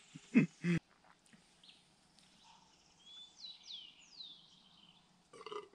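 A wild bird calling several times in a row, short high whistles that slide downward in pitch, over a quiet background about halfway through. A few short loud voice sounds come in the first second.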